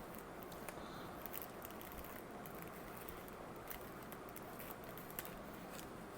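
Faint scattered clicks and light rustles of hands handling a camera lens and its plastic packaging, over a steady background hiss.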